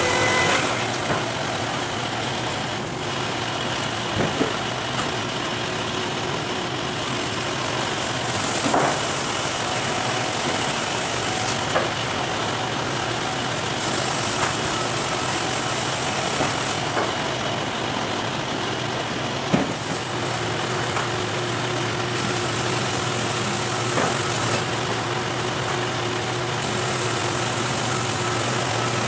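Electric Wood-Mizer LT50 band sawmill running steadily, with a few short sharp knocks. A low hum grows stronger about two-thirds of the way through.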